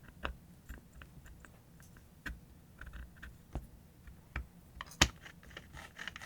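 Scattered light clicks and knocks of small metal parts being handled and fitted together, with one sharper knock about five seconds in: the gear head of an angle grinder being put back together.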